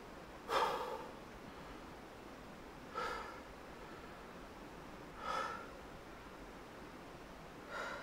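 Four short, heavy gasps, about two and a half seconds apart, the first the loudest.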